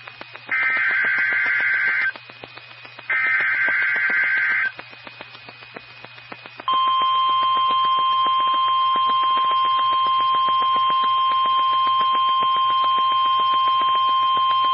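NOAA Weather Radio Emergency Alert System alert: the last two bursts of the digital SAME header, each about a second and a half of harsh data tone, then after a two-second pause the steady 1050 Hz warning alarm tone. It signals that an emergency message, here a flood warning, follows.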